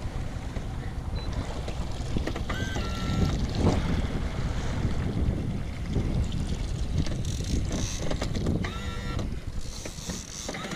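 Wind buffeting the microphone and a low rush of water as a small aluminium boat moves under power, with two brief high-pitched whines, one about two and a half seconds in and one near the end.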